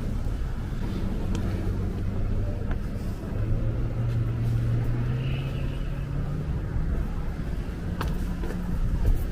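A road vehicle's engine running close by, its low hum growing louder about three seconds in and rising slowly in pitch, over a low traffic rumble.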